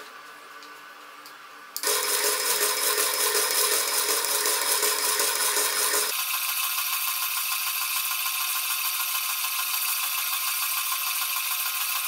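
NEMA 17 stepper motor turning the tape-wrapping ring through its belt, running with a steady whine and a fast rattle. It starts about two seconds in and changes pitch abruptly about six seconds in.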